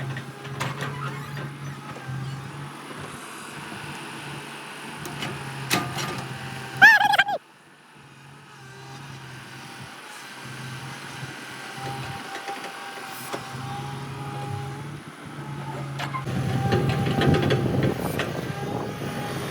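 Vehicle engine sound effects: a steady low engine hum that comes and goes, broken about seven seconds in by a short, loud wavering tone. After the tone the sound drops away suddenly, then builds back up to a louder engine rumble near the end.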